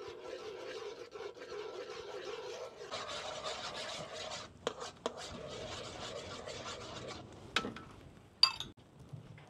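Steady scraping and rubbing of hard objects, with a few sharp knocks, one about halfway through and two more near the end.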